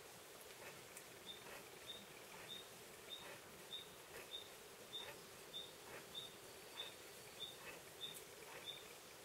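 Faint rainforest ambience: a steady low hum of insects under a short, high chirp that repeats evenly about every 0.6 s, starting about a second in.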